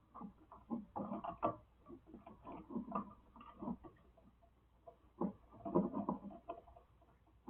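Irregular small clicks, taps and scuffs of hands and tools working on wiring at a light switch box.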